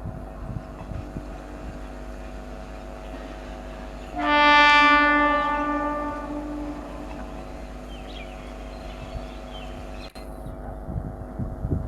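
EMU local train's horn sounding one blast of about three seconds, loud at the start and then fading, over a steady hum.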